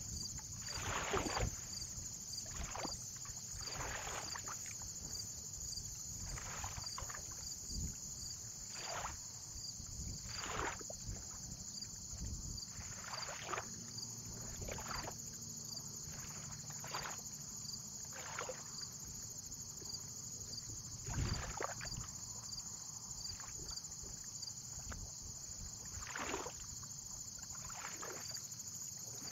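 Small waves lapping and splashing against the waterline every second or two, over a steady high-pitched hiss with faint regular ticks.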